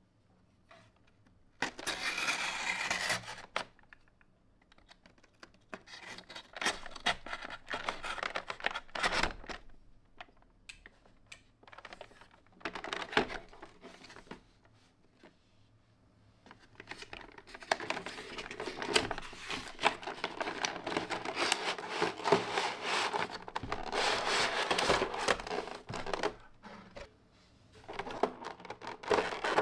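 Paper wrapping being torn and peeled off a cardboard trading-card box: bursts of tearing, crinkling and scratchy rustling with quiet gaps between, the longest stretch in the second half. Near the end, hands tap and scrape on the clear plastic tray inside.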